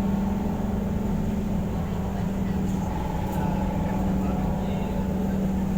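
Car ferry's engines running steadily, a constant low drone and hum heard aboard the vessel.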